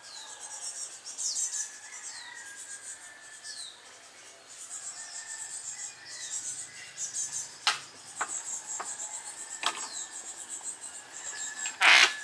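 Birds chirping repeatedly in the forest, with a few sharp wooden knocks from bamboo being struck in the second half, the loudest near the end.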